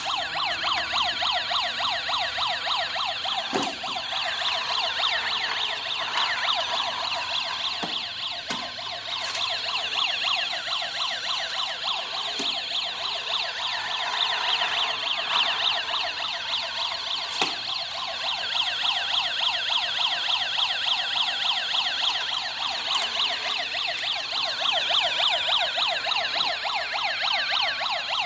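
Electronic police siren from a toy police car, a fast wavering wail that runs on without a break, thin with no low end as from a small speaker. A few faint clicks sound over it.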